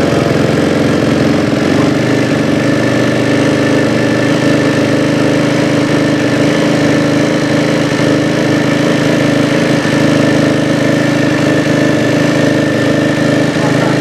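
Honda CRF250's single-cylinder four-stroke engine idling steadily, freshly rebuilt with a new camshaft fitted to cure a knock from the cam.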